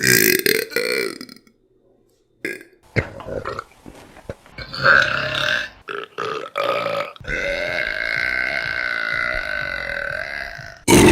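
A woman burping several times: a loud burp at the start, a few short burps, then one long drawn-out burp of nearly four seconds at a steady pitch.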